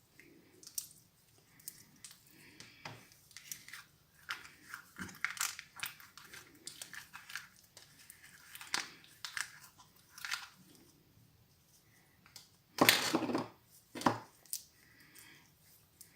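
Glue slime being kneaded and squeezed by hand, giving a run of small wet clicks, crackles and squelches at an irregular pace, with a louder burst of noise about three-quarters of the way through.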